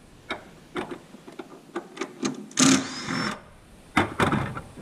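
Cordless drill briefly spinning a bolt out of the supercharger housing, its motor whine rising and then holding, between small metal clicks of the tool and bolts. Near the end comes a louder clatter as the drill is set down on the metal bench.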